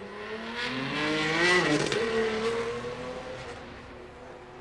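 An 800 hp big-single-turbo BMW 335i Touring's turbocharged straight-six revving hard under full acceleration. The pitch rises for about two seconds to the loudest point, drops sharply, then fades as the car moves away.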